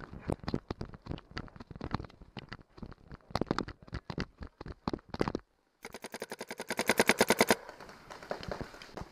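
Scattered sharp clicks and steps. Then, after a brief dropout, a paintball marker (a Planet Eclipse Geo 3) fires a fast, even string of about a dozen shots a second for just under two seconds. A few more scattered shots follow.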